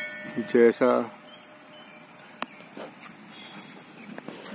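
Insects chirring in one steady, continuous high tone, with a couple of faint clicks.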